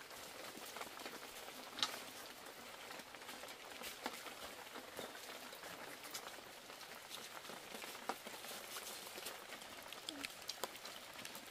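Light rain pattering, with many small drops ticking and a few sharper ticks.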